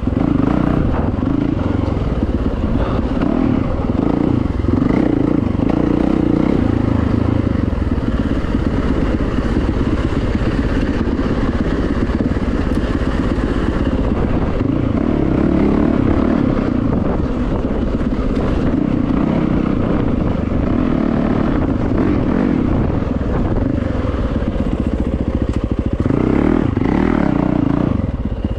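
Yamaha YZ450FX four-stroke single-cylinder dirt bike engine running under load while trail riding, its revs rising and easing with the throttle, with clatter and scraping from the bike over the rough ground. It is heard from the rider's helmet camera.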